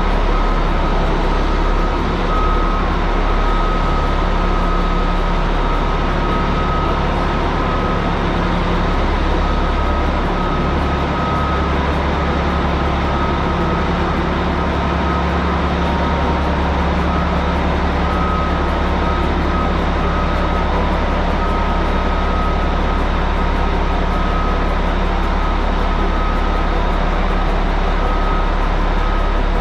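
Caterpillar 627G wheel tractor-scraper's diesel engines running steadily, with a thin, steady high whine over the engine noise.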